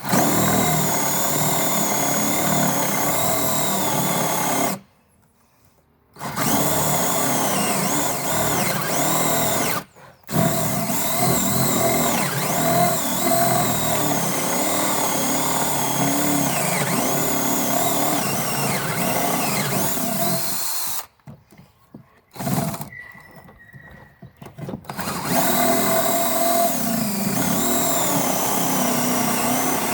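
DeWalt DC970 18-volt cordless drill running under load as it drills a hole, the motor's pitch wavering as the bit bites. It stops for about a second around five seconds in, briefly near ten seconds, and for a few seconds just past twenty before starting again.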